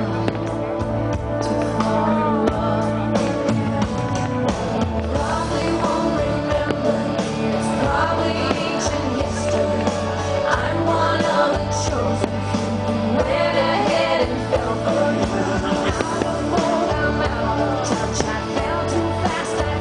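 Music: a song with a singing voice over steady bass and band accompaniment.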